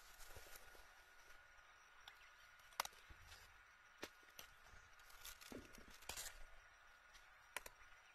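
Faint rustling of grape vine leaves with a handful of sharp snaps as Shine Muscat shoot tips are pinched off by hand.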